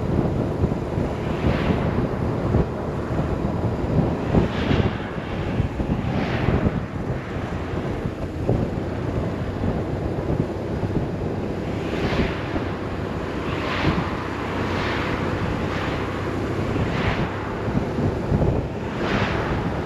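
Wind buffeting the microphone of a motorcycle riding at speed, a heavy rushing noise that swells in repeated gusts, with the BMW R 1150 RS's boxer twin engine running faintly underneath.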